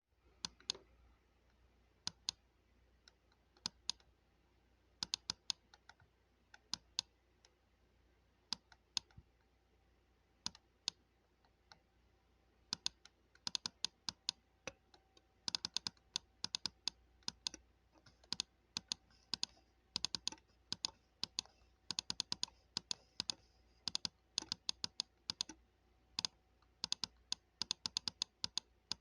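Computer mouse button clicking: single and paired clicks spaced apart at first, then, from a little under halfway, quick runs of rapid clicks.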